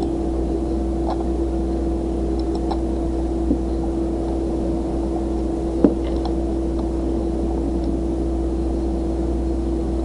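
Steady low electrical hum with one constant tone and a background hiss, broken by two short clicks about three and a half and six seconds in.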